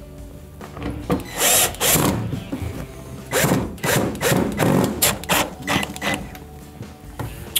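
Power drill-driver running in a series of short bursts, driving screws back into an LG front-load washer's door assembly.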